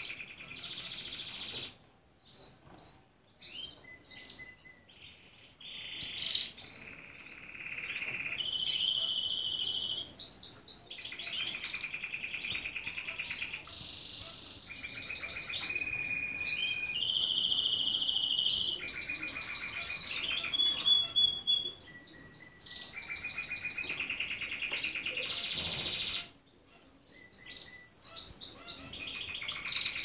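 Red canary singing a long, continuous song of rapid trills and rolling runs of repeated notes, each run held at one pitch for a second or two before switching to another. There are brief pauses about two seconds in and again near the end.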